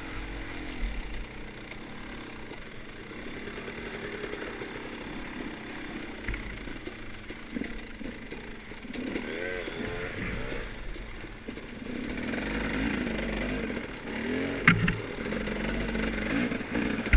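Off-road dirt bike engine revving up and down as it is ridden along a wooded trail, with a sharp knock about three-quarters of the way through.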